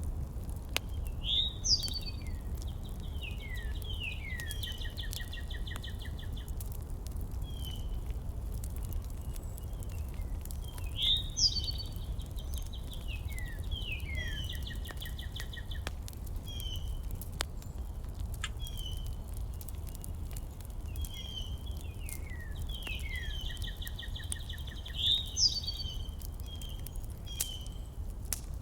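A songbird singing a phrase of quick descending notes and a trill, repeated about every ten seconds, with short single chirps in between, over a steady low rumble.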